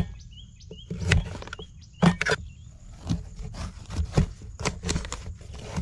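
Knife chopping vegetables on a cutting board: a string of irregular short knocks, two or three a second. A thin, steady, high-pitched insect buzz runs behind them.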